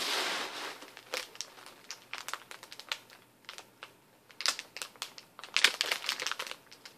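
A plastic candy bag crinkling as it is handled and turned over in the hands, in irregular bursts of sharp crackles with a quieter stretch in the middle.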